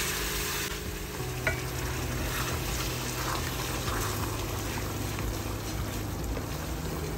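Hot meat curry sizzling and bubbling in a metal pot as a little water from a kettle hits it, then a wooden spoon stirring through the curry, knocking once against the pot about a second and a half in.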